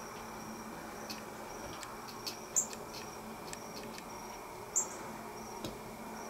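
Crickets and other insects chirping steadily in a field in the evening, with a couple of short, sharp high chirps standing out about two seconds apart and a few faint clicks.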